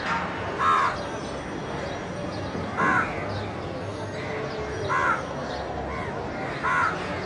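A crow cawing, four short calls about two seconds apart, over steady low background noise.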